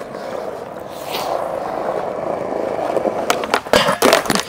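Skateboard wheels rolling steadily over smooth concrete, followed about three seconds in by a few sharp clacks and knocks of the board as a trick is tried on a square flat bar.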